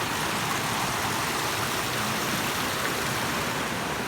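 Waterfall water rushing steadily, an even hiss.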